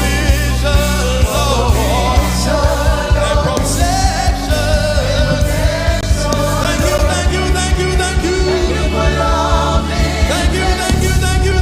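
Gospel music: a band playing over a steady beat, with voices singing the melody.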